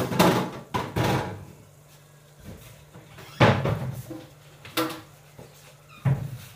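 Kitchen knocks and clatters, about five spread over several seconds, from things being handled at the sink and cupboard doors, over a faint steady hum.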